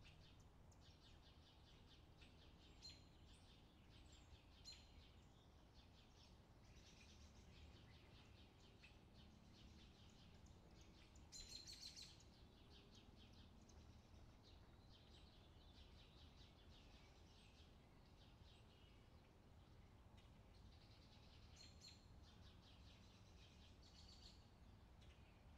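Near silence, with faint high chirps that come and go throughout, a little louder for a moment about halfway through.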